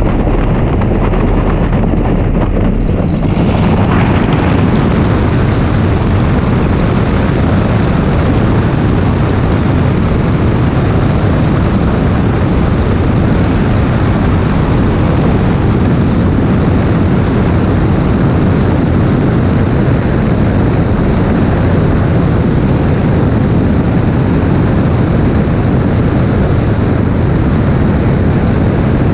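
Cessna 182R's 300 hp Continental IO-550-D engine and propeller at takeoff power, a loud steady drone through the takeoff roll and liftoff. The sound grows brighter about three seconds in as power comes up.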